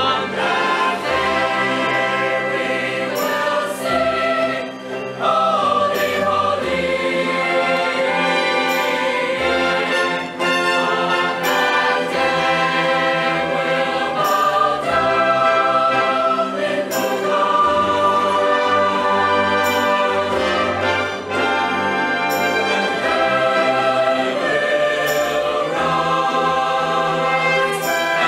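A mixed choir singing with a symphony orchestra of strings and flute in a choral anthem.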